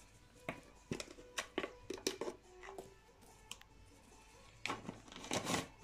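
Scattered light clicks and taps of plastic measuring spoons and cups being handled and set down beside a glass mixing bowl, with a cluster of taps near the end. Faint background music runs underneath.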